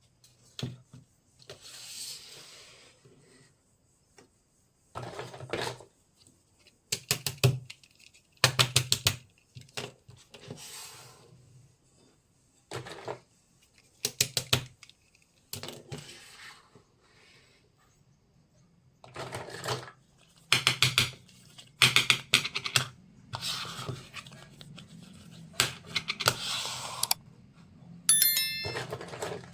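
Small toy kitchen pieces being handled and set down: a string of sharp clicks, taps and clinks, with a couple of longer rustles and a quick run of ticks near the end.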